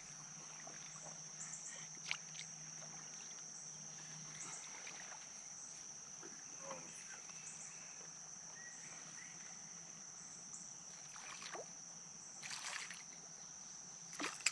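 Faint outdoor background on a river: a steady high-pitched insect drone, with a few brief faint splashes or knocks, the longest near the end.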